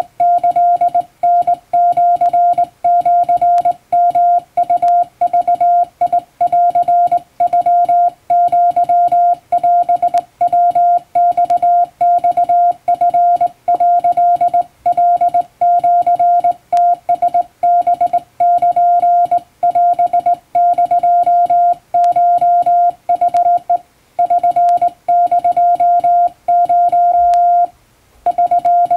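Japanese (Wabun) Morse code sent by hand on a straight key, heard as one steady beep switched on and off in short dots and longer dashes, with a brief pause near the end.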